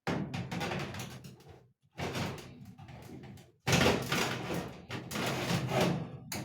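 Oven door and baking tray being handled: clattering and knocks in three stretches, each breaking off abruptly.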